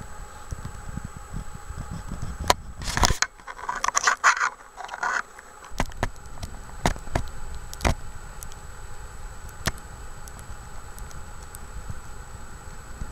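Wind rumbling on the microphone, with a burst of crackling and scraping about three to five seconds in and a few sharp clicks afterwards.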